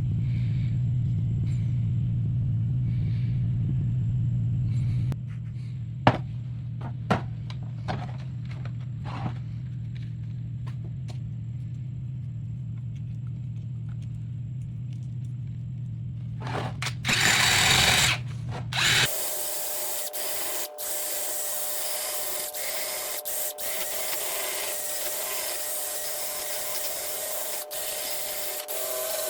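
Electric drill fitted with a quick-change sanding disc, running and sanding wood. For about the first nineteen seconds there is a steady low hum with a few clicks, then a short louder grinding burst. After that the hum stops and a steadier hissing, rubbing sound with a higher whine takes over.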